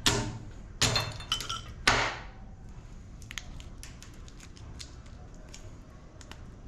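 Hand tools working a small transformer off an LED lamp's rectifier board: three sharp metallic clinks in the first two seconds, then light scattered ticks and clicks.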